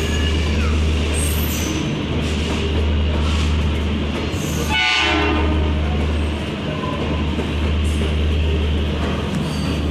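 Indian Railways train at the station with a steady low rumble, and a short horn blast about five seconds in.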